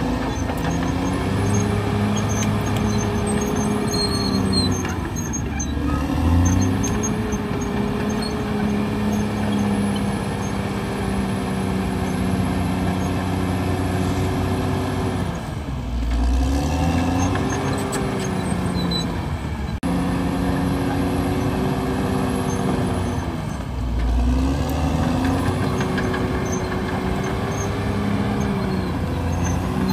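CAT D6R crawler dozer's diesel engine working hard, its note sagging and climbing back every several seconds as the machine pushes earth and takes load.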